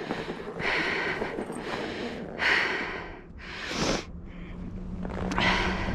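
A person breathing hard in rhythmic puffs, about one breath a second.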